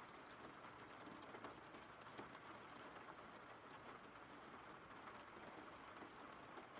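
Faint, steady rain falling, with scattered ticks of individual drops.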